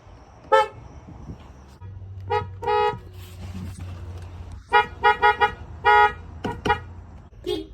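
Car horn sounded in short toots: one about half a second in, two more around two and a half seconds, then a quick run of about six toots near five to six seconds, and two more shortly after. A steady low hum runs under the later toots.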